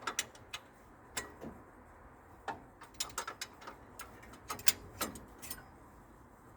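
Ratchet wrench clicking in short, irregular runs while tightening a cylinder head bolt to about 30 foot-pounds.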